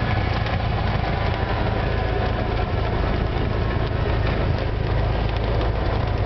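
Cessna 172's propeller engine running steadily at low power, a constant drone heard from inside the cabin as the plane taxis.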